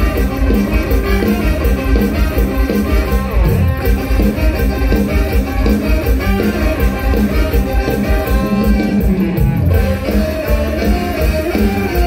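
Amplified live mor lam band music, loud and continuous, with a heavy, steady bass beat under plucked-string and other pitched instrument lines.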